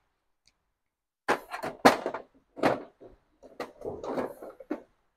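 Hand tools clattering and clinking as they are rummaged through in a toolbox drawer: an irregular run of knocks and rattles after about a second of quiet.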